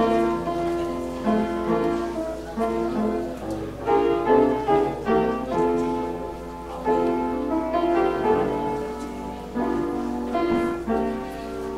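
Keyboard instrument playing slow, sustained chords, a new chord struck every second or so.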